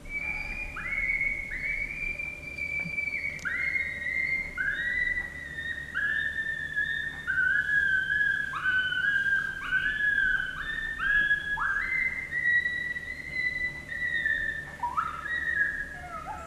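Coyote howls in a long chorus: many overlapping drawn-out cries, each sliding sharply up into a held high note, one after another every half second or so.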